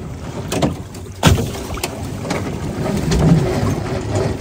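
Drift boat being pushed off its trailer: a sharp knock about a second in, then a low rumbling scrape as the hull slides on the trailer.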